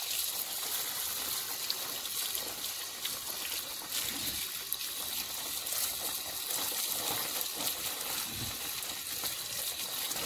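Water running steadily from an outdoor tap and splashing over a dressed goat carcass and the plastic sheet beneath it as the carcass is washed.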